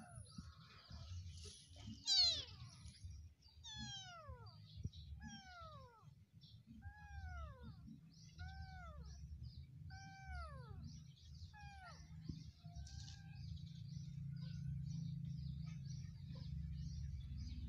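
Small kitten mewing repeatedly: about seven high cries, each falling in pitch, roughly a second and a half apart, the first the loudest. The cries stop a few seconds before the end.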